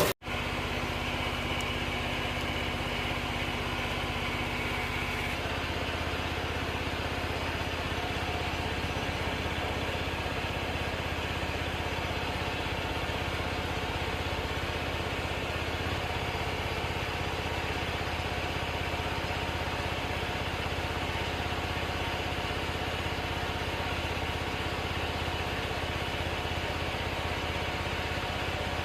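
An engine idling steadily at an even level, its tone changing slightly about five seconds in.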